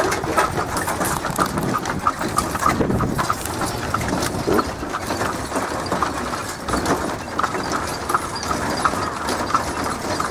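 A horse's hooves clip-clopping along the road as it pulls a buggy, with the buggy rattling over the bumpy surface.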